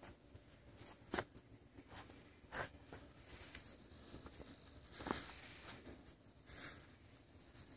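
Faint steady high-pitched insect trill, with four soft knocks spread across it.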